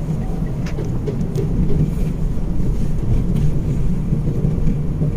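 Mitsubishi Mirage on the move, heard from inside the cabin: a steady low rumble of engine and road noise, with a few faint clicks.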